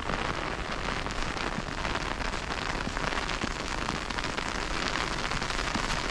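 Small round snow pellets falling steadily, a dense rain-like patter of many tiny ticks with no pauses.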